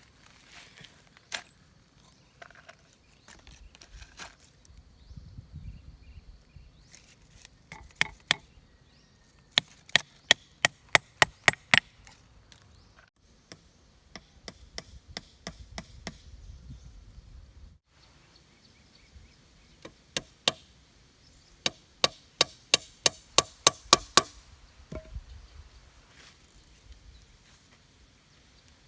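A blade chopping: a few single strikes, then two quick runs of about eight to ten sharp strokes at three to four a second, with rustling between the runs.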